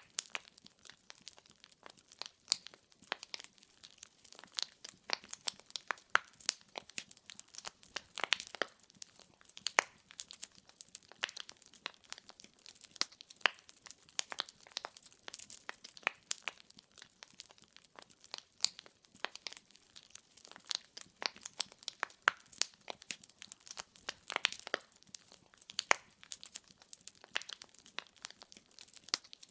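Wood fire burning in a fireplace, logs crackling and popping in dense, irregular snaps over a faint hiss.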